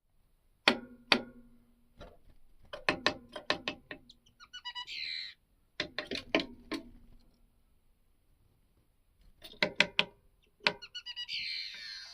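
A bird calling in short high chirps with falling sweeps, once in the middle and again near the end. Between the calls come runs of sharp taps, each with a brief low ringing; these taps are the loudest sounds.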